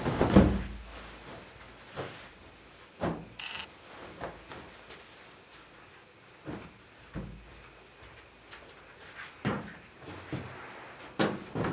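Bedding and rugs being swung, folded and set down: a dull heavy thump about half a second in, then scattered lighter knocks and rustles every second or so.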